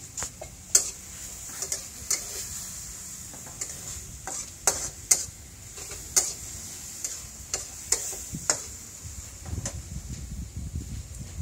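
Metal wok ladle scraping and clanking irregularly against a wok during stir-frying, over a steady hiss of food sizzling in the hot oil.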